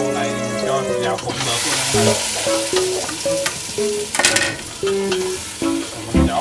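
Sliced cucumber and octopus dropped into hot oil in a metal pot start sizzling about a second and a half in. They are then stir-fried with a wooden spatula scraping the pot, with a melody playing alongside.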